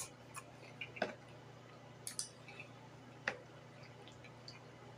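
Close-up mouth sounds of a person chewing food: scattered faint wet clicks and smacks, the sharpest about three seconds in.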